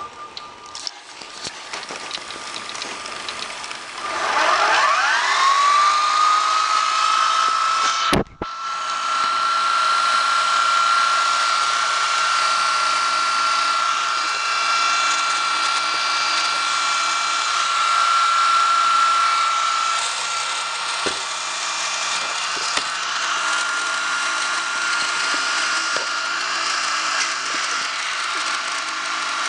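Sharp VC-M530 VHS video recorder fast-forwarding a cassette: about four seconds in the tape mechanism spins up in a rising whine, then settles into a steady high whine with the whirr of tape spooling. There is a brief sharp break about eight seconds in.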